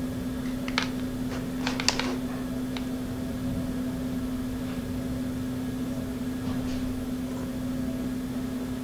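A steady low hum under hand-soldering a wire onto a small circuit board, with a few light clicks and ticks in the first three seconds as the wire and soldering iron are handled at the pads.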